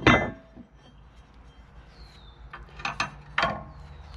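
Metal bash-bar mounting plates being picked up and set in place: one loud clank at the start, then a few lighter knocks and clinks about three seconds in.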